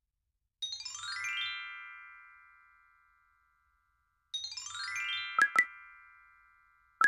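Two synthesized chime flourishes added in editing, each a quick run of bell-like notes that rings on and fades away over a couple of seconds, the second followed by two sharp pops, with two more pops at the very end.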